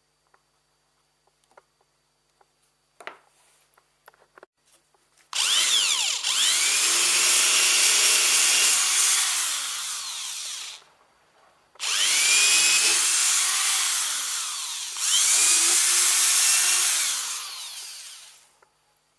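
Electric hand planer motor, rigged as a vertical planing machine, run three times on wood. A few light clicks come first. About five seconds in it winds up to speed and runs for about five seconds, then winds down. It then starts again twice in quick succession, rising in pitch at each start and falling away when switched off.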